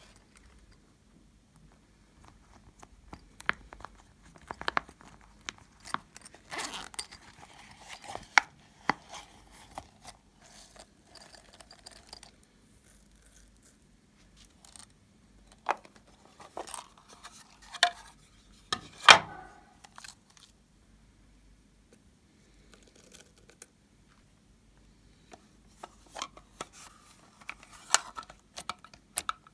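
Homemade slime being mixed and worked by hand, giving irregular sticky crackles, clicks and popping scrapes that come in bursts with short quiet gaps.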